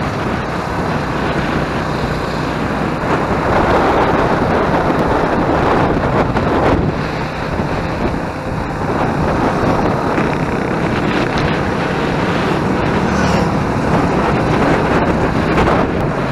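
Motorcycle running at road speed, with wind rushing over the on-bike camera microphone and the engine's low steady drone underneath.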